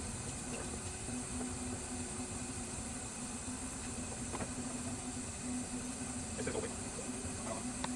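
Steady low hum with a faint hiss of shop background, and a few light metal clicks from hand tools working on the valve springs about halfway through and near the end.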